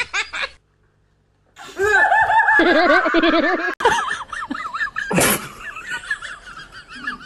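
Laughter: a short burst of laughing that cuts off, then after a pause a loud, warbling laugh-like sound with a quick wavering pitch. Near the end there are a click and a brief sharp sweep, with quieter warbling after them.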